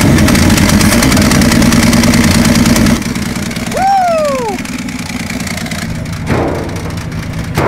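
Engine of a 1963 Chevy C10 pickup running after being coaxed to life with starting fluid, having sat for a while; the engine sound breaks off about three seconds in. A man then gives a short 'ooh', rising then falling in pitch.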